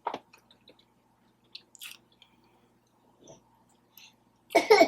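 Close-up mouth sounds of someone chewing birria tacos, soft scattered wet smacks and clicks. A louder, brief burst of sound comes near the end.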